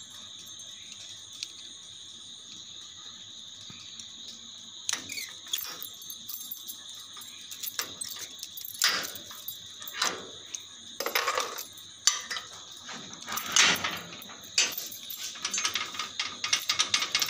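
Keys jangling and a padlock on a metal grille gate being worked open, with scattered metallic clicks and knocks that come thicker near the end.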